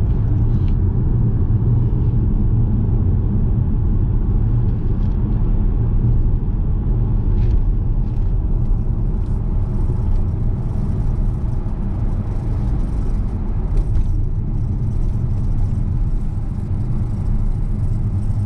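A car driving along, its road and engine noise a steady low rumble.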